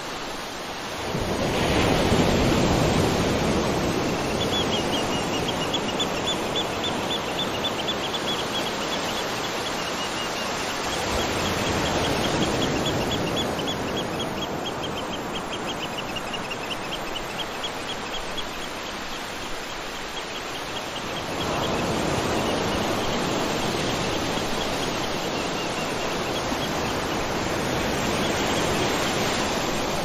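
Waterfall rushing water, a steady full noise that swells about two seconds in and again a little past the middle. A high, rapid trill of repeated chirps runs over it for much of the first half and returns near the end.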